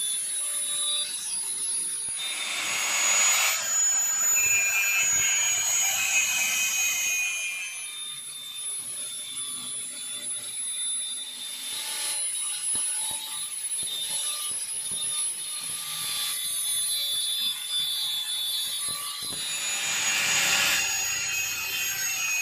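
Electric angle grinder with a sanding disc running with a steady high whine, rasping against the primed and filler-patched steel body of a 1973 Vespa Sprint as it sands it down. The rasp swells louder three times, as the disc is pressed harder onto the panel.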